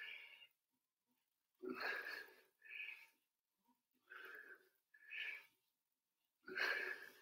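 A man breathing hard from exertion during kettlebell upright rows: three faint pairs of breaths, each a longer breath followed by a shorter one, coming about every two and a half seconds in time with the lifts.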